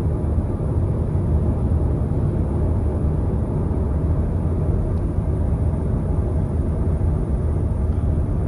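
Steady low rumble of a 2014 Honda Odyssey's 3.5-litre V6 and tyres heard inside the cabin while driving. The faulty automatic transmission hangs in gear before shifting into overdrive.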